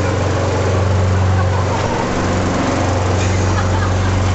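Gasoline lawn mower engine running steadily indoors, a loud, even hum.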